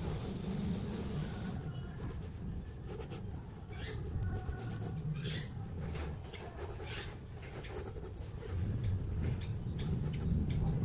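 Mechanical pencil scratching across drawing paper in a run of quick sketching strokes, over a steady low rumble.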